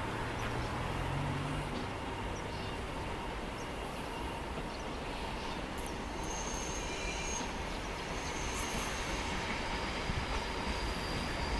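Freight train's container wagons rolling slowly past as the train brakes to a stop at the platform, a steady rumble of steel wheels on rail. From about halfway through, thin high brake and wheel squeals come in on and off.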